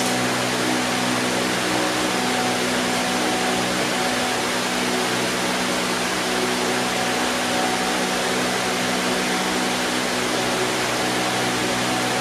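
6-gallon pancake air compressor running steadily, pumping up its tank: an even rushing noise over a low motor hum.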